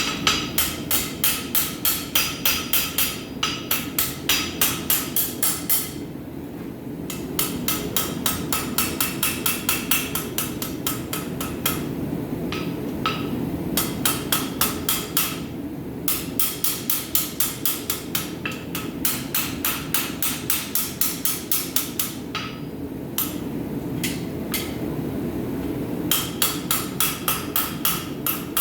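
Rounding hammer striking hot steel on an anvil in quick, steady runs of about three to four blows a second, each blow ringing, with brief pauses between runs as the blacksmith draws out the bar. A steady low rushing noise runs underneath.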